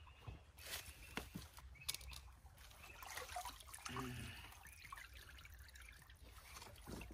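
Faint water trickling and dripping from a fish trap as it is lifted out of the water.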